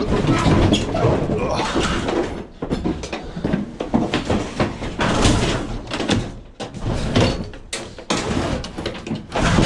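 Knocking, scraping and rattling of scrap appliances, a washing machine among them, being shifted about in the back of a van, a run of sharp knocks and scrapes.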